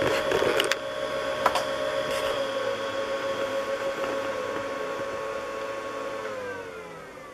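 Small electrical-box cooling fan running with a steady whine, with a few sharp clicks in the first two seconds; about six seconds in its pitch falls and it gets quieter as the fan winds down.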